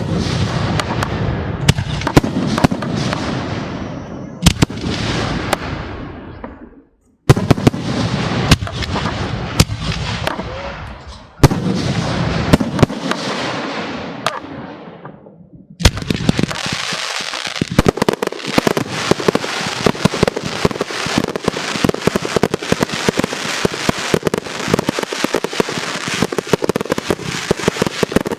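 Aerial fireworks display: shells bursting with sharp reports, each followed by a fading crackle, with the sound cutting out briefly about seven seconds in. From about sixteen seconds in, many bursts overlap into a dense, continuous crackling.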